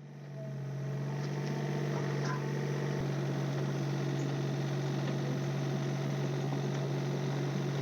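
Mini excavator's diesel engine running at a steady speed while the machine is worked, a low even drone that grows louder over the first second and then holds.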